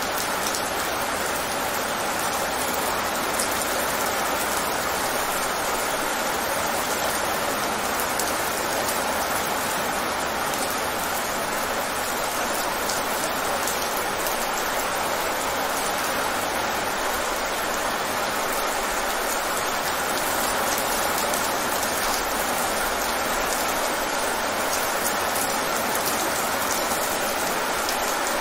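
Heavy rain falling on wet pavement: a steady, even patter and splash of drops hitting standing water on the ground.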